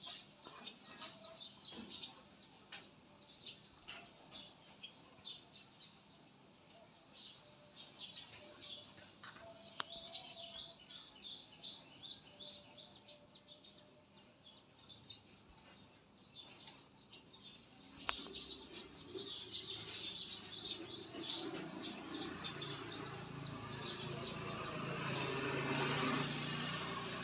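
Small birds chirping, many short high calls in quick succession. About two-thirds of the way in the chirping grows louder and denser, with a low rumble underneath.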